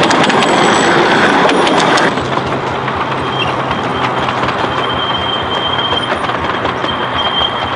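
Miniature railway train running on its track, its wheels clattering over the rails. A thin, high wheel squeal comes and goes in the latter half.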